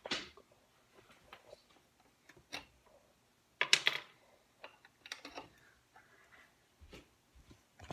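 Scattered light clicks and knocks, with two short rustling bursts, one at the start and one about four seconds in: small handling sounds from someone moving about.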